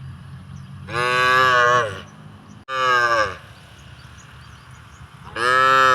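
Cattle mooing: three separate moos, the second shorter and falling in pitch, over a steady low hum.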